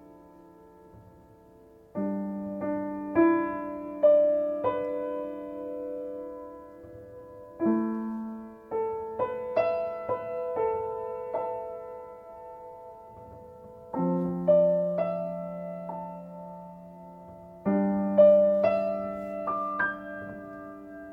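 Slow solo piano tuned with C at 528 Hz. Chords are struck four times and each is left to ring and fade, with single melody notes played over them.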